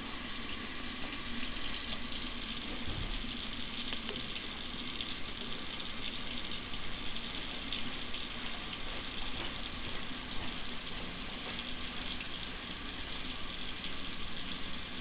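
Water running steadily from an open tap, drawn through a tankless water heater while it is waited on to reach hot-water temperature.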